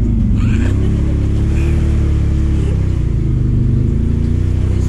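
ATV engine running while riding along a muddy trail. The revs dip briefly near the start, pick up again, then hold fairly steady.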